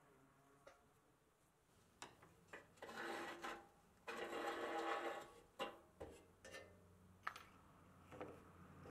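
Rusty steel axle rod scraping as it is worked out of a pressed-steel Tonka toy truck and its rubber-tyred rear wheels, in two scraping spells a few seconds in, with a few sharp metal clicks and taps on the wooden bench after.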